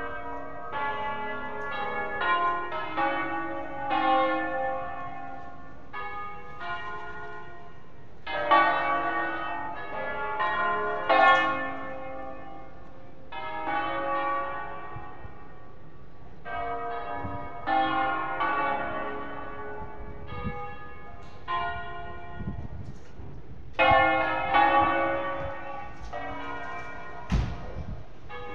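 The seven-bell concert peal of Cremona Cathedral, tuned to A-flat, ringing in waves: each wave is a quick run of overlapping strikes that hum on, coming back every four to five seconds. There is one sharp knock near the end.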